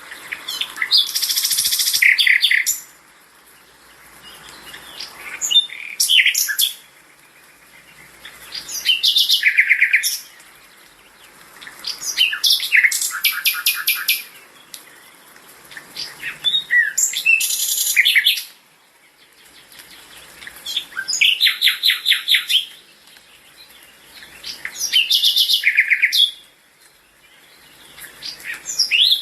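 A songbird singing: repeated phrases of rapid trills and chirps, each lasting two to three seconds, with a pause of about a second or two between phrases.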